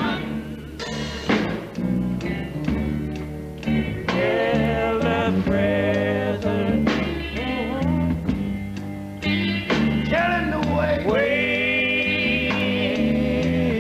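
Male gospel quartet singing with band accompaniment: steady bass notes under harmony vocals, with held notes and no clear words, and a long sustained chord near the end.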